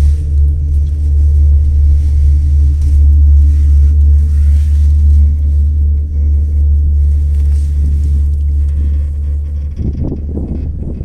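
Gondola cabin riding along its haul cable: a loud, steady low rumble with a hum. About ten seconds in, the deep rumble drops away and a rougher, fluttering rush takes over.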